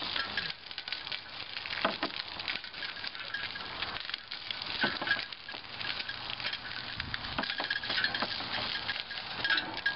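Sweet sorghum canes being crushed between the rollers of a home-made, pole-turned cane press: a dense, irregular crackling and clicking as the stalks split.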